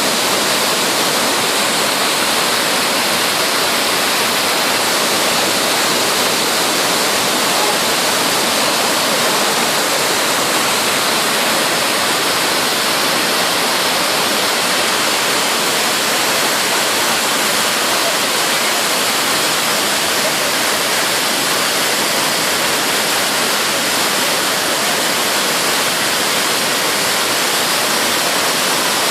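Waterfall: water pouring and crashing in a loud, steady, unbroken rush.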